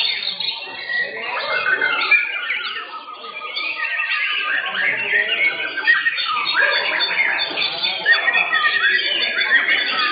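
Several white-rumped shamas (murai batu) singing at once, a dense, continuous mix of rapid overlapping whistles, chirps and pitch sweeps.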